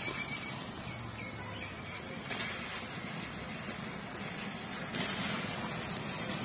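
Dried jujubes (kul) dropped by hand into jaggery syrup in a metal wok, with soft splashes twice, about two seconds in and again about five seconds in, over a steady outdoor hiss.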